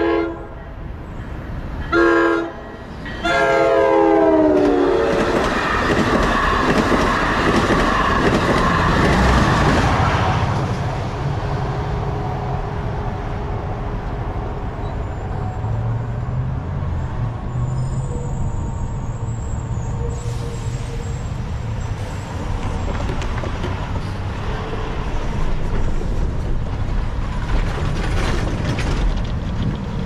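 NJ Transit Alstom PL42-AC diesel locomotive's horn: a long blast cut off just after the start, a short blast about two seconds in, then a longer one whose pitch drops as the locomotive passes at speed. The train then rushes by with wheel clatter for several seconds before the sound eases into a lower steady rumble of road traffic at the crossing.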